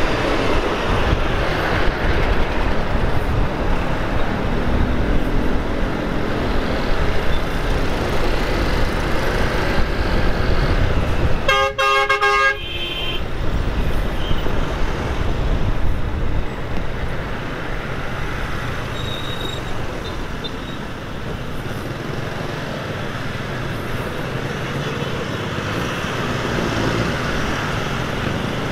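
Riding a motorcycle through city traffic: a steady rush of wind, engine and road noise. A vehicle horn honks once for about a second, around the middle.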